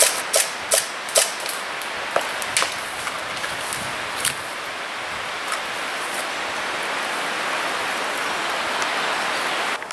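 Airsoft gunfire in a forest skirmish: a scattered string of sharp snaps, several in quick succession at first, then fewer and further apart, over a steady hiss that cuts off suddenly near the end.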